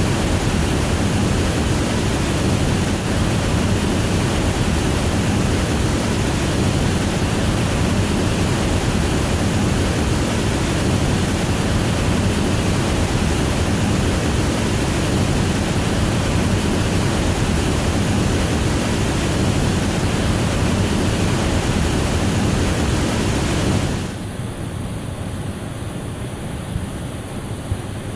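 A waterfall's steady rush of falling water, a dense even noise. Near the end it drops abruptly to a quieter, duller rush.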